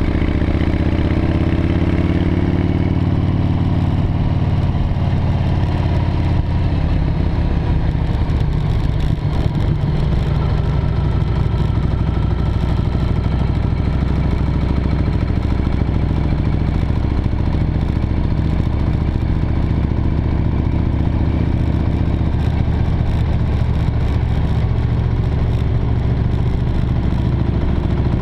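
Motorcycle engine running while riding, heard from on the bike: its pitch drops over the first couple of seconds, then holds at a steady cruise.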